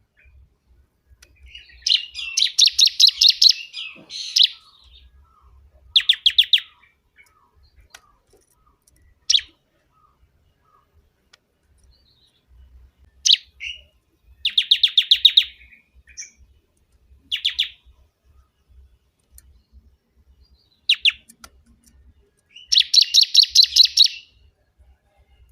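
Bar-winged prinia (ciblek kebun) singing loudly: bursts of rapid, high, chattering notes, each about a second long, separated by pauses of a few seconds, with single sharp call notes in between.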